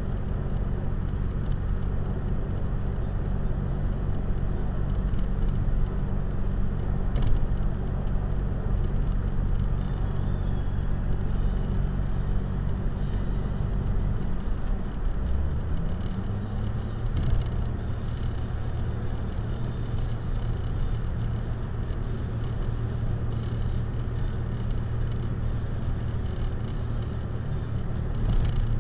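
Car engine and road noise heard from inside the cabin through a dashcam, a steady drone. About halfway the engine note drops and then settles at a new pitch as the car changes speed, and a single brief knock sounds about seven seconds in.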